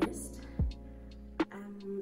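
Background music with a steady beat: a sharp percussive hit about every two-thirds of a second over held tones.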